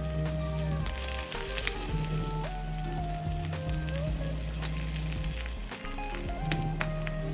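Food sizzling and crackling as it fries in oil in a pan, under background music.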